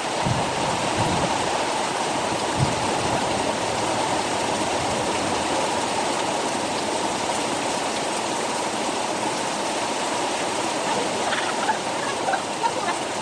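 Heavy rain pouring down in a steady, loud hiss, with a few dull knocks in the first few seconds.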